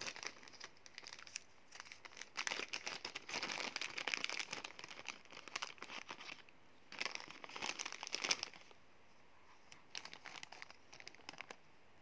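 Thin clear plastic bag crinkling as it is handled and unwrapped, in several bursts over the first eight and a half seconds; after that only a few faint clicks.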